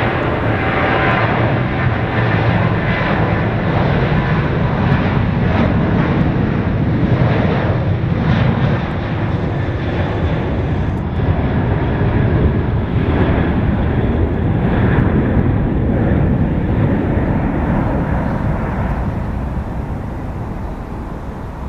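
A Boeing 737-800's two CFM56-7B turbofan engines at takeoff thrust during the takeoff roll: a loud, steady jet roar that fades over the last few seconds as the aircraft pulls away and lifts off.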